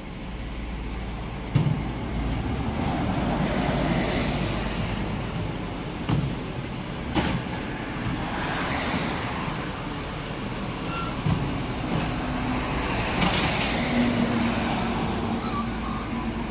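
Garbage truck running, with several sharp knocks and clanks over its steady noise and a short steady tone about three-quarters of the way through.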